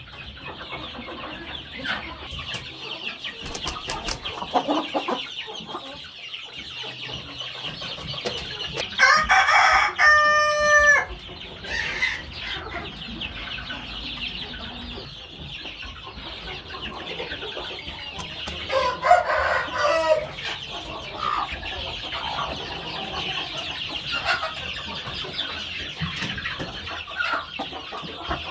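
A rooster crows once about nine seconds in, a long call that ends on a held note, and gives a shorter loud call about ten seconds later. Chickens cluck softly in between, over a steady high-pitched hiss.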